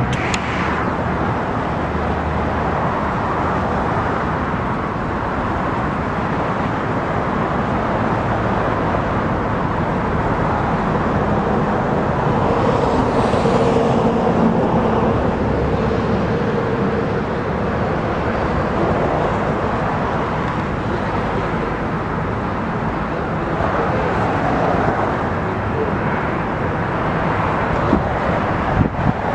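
Jet engine noise from an Airbus A321neo airliner: a loud, steady rush. A faint steady tone rises out of it around the middle.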